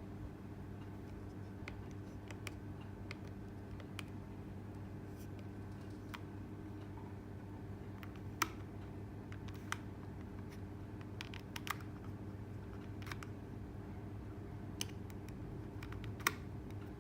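A steady low hum with a scattering of small, irregular clicks, the loudest about eight seconds in and again near the end.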